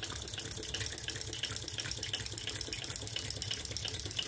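Vintage Empire toy water pump, driven by a Tarot Stirling engine, splashing a stream of water from its brass spout into its small trough, with an even, repeating pulse from the pump's strokes. The engine is pumping the water with ease.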